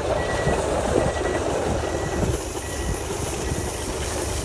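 Reversing alarm of a snow-clearing vehicle, a single high beep repeating about once a second and fading out after about three seconds, over a steady low engine rumble.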